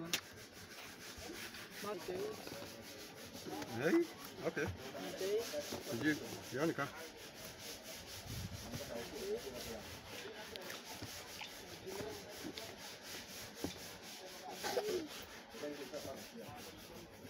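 Rubbing and scraping of hands and clamp-meter test probes working over the metal terminals of a hybrid battery pack's cell modules, with light ticks and scratches throughout, as the module voltages are checked one by one.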